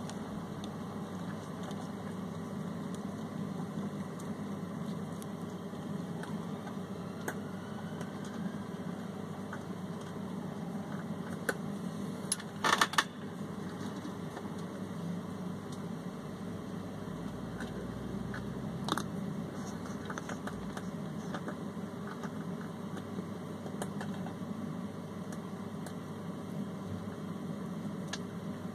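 Steady low hum, with scattered faint clicks and a short cluster of sharper clicks a little under halfway through, as hands handle a plastic tub of soil and a beetle.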